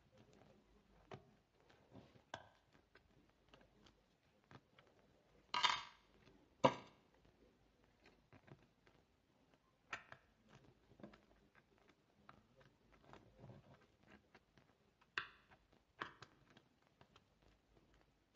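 Faint, scattered clicks and scrapes of small pliers working a stiff metal keyring jump ring closed, with two louder clicks a little over five seconds in and a few more later.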